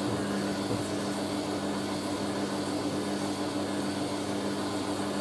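Hoover A3060 Electronic 1100 washing machine running with a steady low hum.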